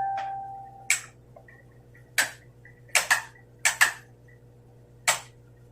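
A clink that rings on briefly at the start, then about seven sharp clicks at uneven intervals, some in close pairs.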